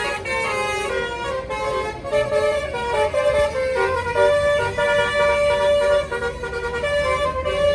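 Bus telolet horn, a basuri-type multi-tone horn, playing a tune of quickly changing notes with a few held longer, over the low rumble of the bus's engine.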